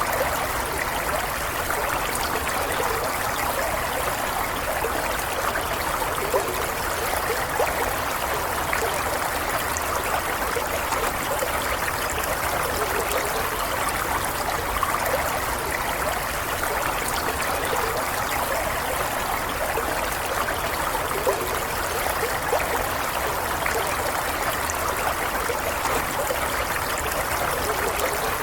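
Stream water flowing and trickling over stones in a steady, even rush.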